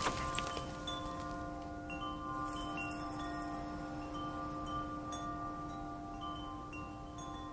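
Soundtrack of soft, sustained chime tones held as a steady chord, with short high tinkling notes scattered over it; it swells a little about two to three seconds in.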